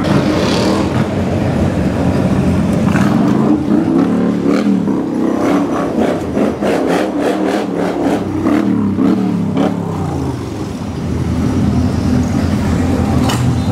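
1955 Chevrolet driving, heard inside its cabin: the engine running under road noise, with the engine pitch rising and falling in the middle. A quick run of knocks comes around the same time.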